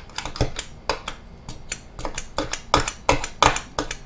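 Vintage three-bladed plunger food chopper being pumped up and down on a wooden cutting board, its metal blades chopping small onions. It makes a run of sharp clacks that come faster toward the end, about three a second.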